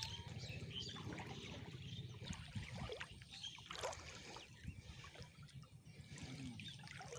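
Water sloshing and splashing in short, irregular strokes as a man wades waist-deep and works his hands through the shallow water.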